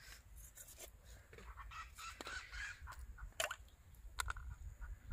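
Scattered short bird calls over a low outdoor rumble, with small clicks and taps, two of them sharper a little past the middle.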